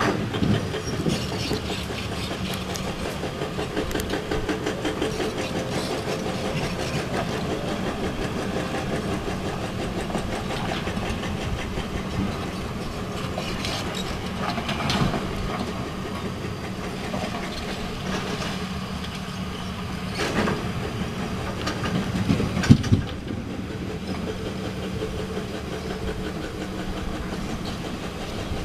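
Diesel engines of heavy earthmoving machines running steadily, a small crawler dozer pushing rock among them, with a constant clatter and occasional knocks. The loudest is a short cluster of sharp knocks a little after twenty seconds.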